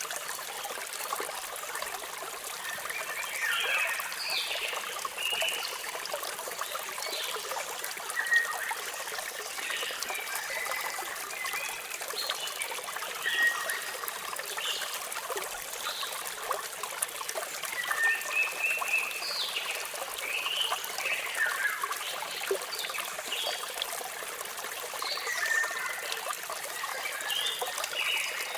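Steady rush of falling water with birds chirping repeatedly over it, short calls coming every second or two.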